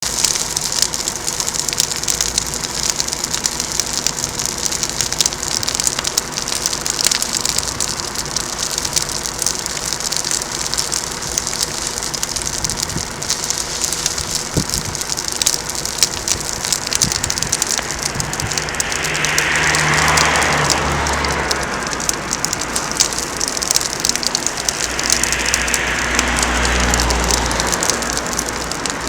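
A large fire burning with dense, continuous crackling and a steady hiss. The sound swells into a louder rush twice, about two-thirds of the way through and again near the end.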